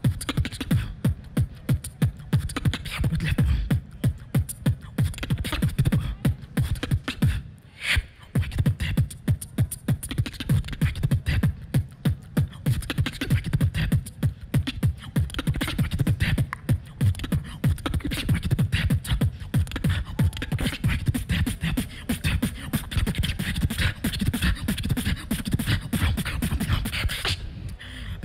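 Human beatboxing into a handheld microphone: a steady, fast run of deep bass kicks with sharp snare-like clicks and hisses on top. It breaks off briefly about eight seconds in and again near the end.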